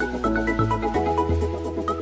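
Background music with a steady beat, a bass line and quick melody notes.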